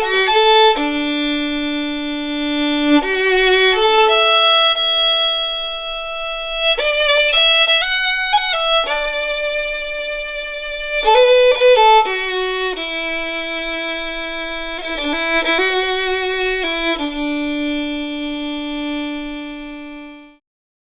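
Solo violin playing a slow melody of long held notes broken by quick ornamented runs, fading out just before the end.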